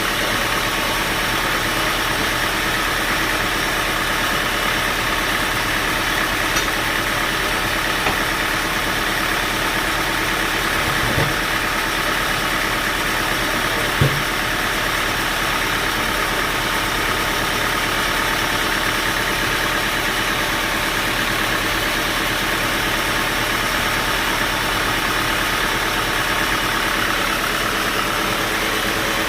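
Band sawmill machinery running steadily, with a couple of faint knocks midway.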